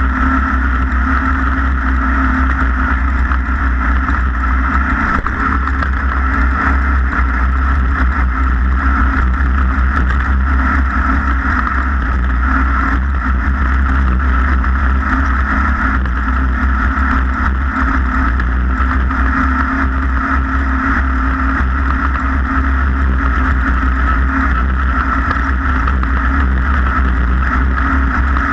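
An engine running steadily at a constant note with no revving, over a heavy low rumble.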